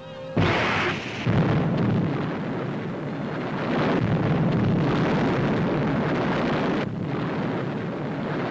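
A depth charge exploding: a sudden blast about half a second in, then several seconds of heavy, continuous noise that eases slightly near the end.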